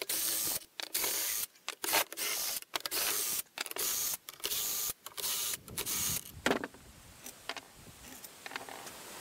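Cordless drill run in a dozen or so short trigger bursts, backing the bolts out of a steel sawmill clamp lift bracket. A sharp metal clank comes about two-thirds of the way through, followed by a few light clinks of parts being set down.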